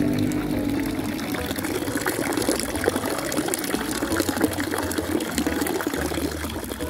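A fountain spout's stream of water pouring steadily and splashing into the pool of the fountain basin.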